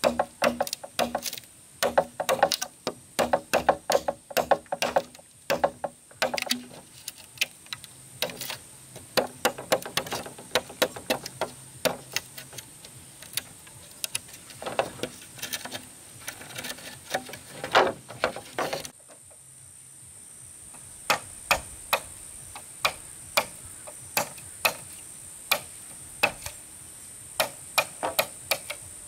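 Repeated knocks of a hand tool striking wood. They are irregular and dense, some ringing, for about the first two-thirds. After an abrupt change they settle into steady tapping at about one and a half strikes a second.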